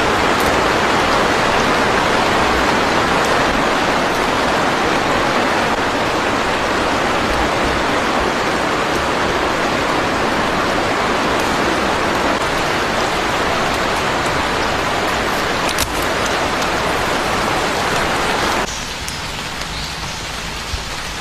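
Steady rain falling as a dense, even hiss, with a faint tick or two about three-quarters of the way in. Near the end it drops suddenly to a softer, thinner patter.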